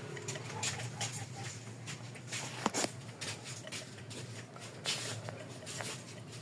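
Scattered light clicks, taps and rattles of hand work on engine parts, with a sharper pair of clicks about two and a half seconds in; the engine is not running.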